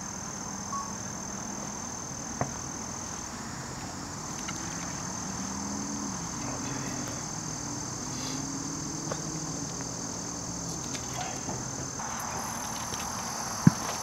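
A steady, high-pitched insect trill on one held tone, dropping out briefly about three seconds in. A faint low hum runs through the middle, and near the end there is one sharp knock from the camera being handled.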